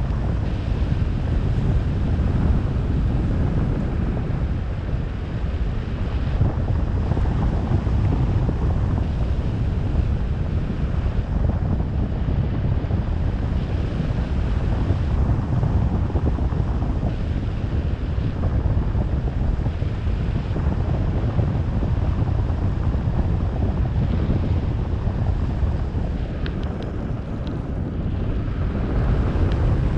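Steady wind buffeting the microphone, a continuous low rumble with no distinct events.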